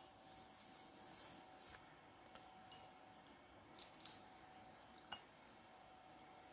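Faint light clicks and taps of small metal hinge parts and new bushings being handled, a few scattered over quiet room tone, with a slightly louder pair of clicks past the middle and one sharp click near the end.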